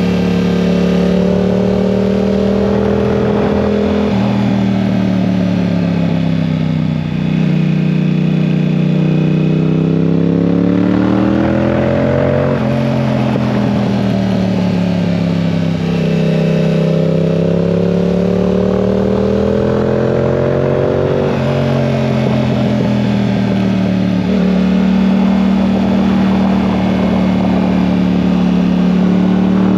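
2022 Yamaha R7's 689 cc parallel-twin engine under way, its revs rising and falling over several seconds at a time, with a few sudden pitch jumps at gear changes, over wind and road noise.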